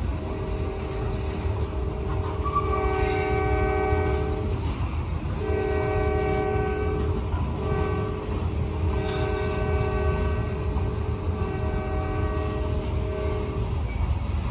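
Diesel freight locomotive's air horn sounding several blasts, a chord of steady tones: one long blast, then more blasts with short breaks, ending about a second before the close. Under it runs the steady low rumble of the train passing.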